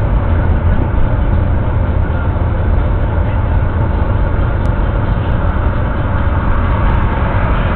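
A car's road and engine noise as heard inside the cabin while driving at city speed: a steady, heavy low rumble.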